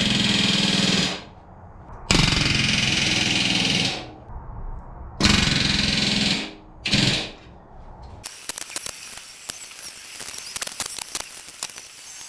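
Pneumatic rivet gun hammering in three bursts of about a second and a half each and one short one, driving MS20470AD4 aluminium rivets into wing rib stiffeners. From about eight seconds in, quieter irregular clicking and rattling of small metal parts.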